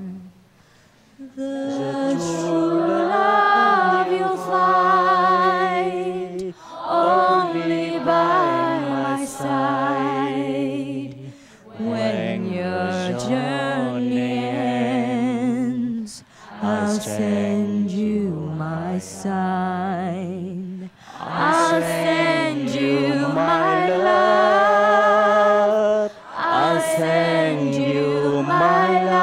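A woman singing a slow song solo and unaccompanied into a microphone, in phrases of a few seconds with short breaks between them and vibrato on the held notes.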